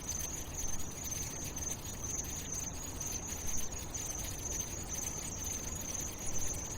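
Steady ambient background with a continuous high-pitched hum or buzz over faint crackling noise.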